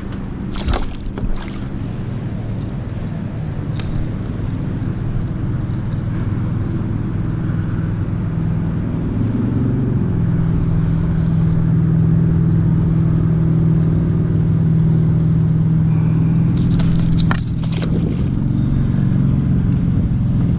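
Motorboat engine running steadily nearby, a low drone that grows louder about nine seconds in and holds. A couple of short knocks from handling the hooked fish and lure in the kayak.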